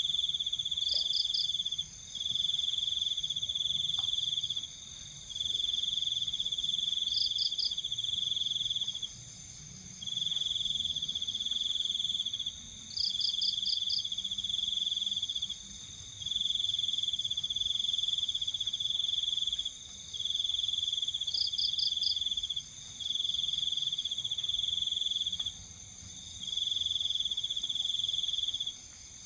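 Night insects calling: one trills loudly in repeated stretches of about two to three seconds with short pauses between them, over a steady, higher-pitched insect chorus, with a brief rapid chirp every few seconds.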